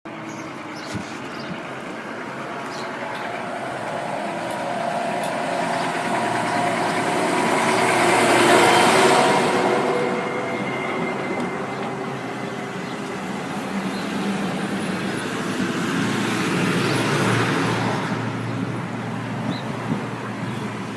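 Truck horn sounding a long, low chord of several steady tones over the noise of the passing truck, loudest about eight seconds in. A second swell of vehicle noise with lower steady tones follows near the end.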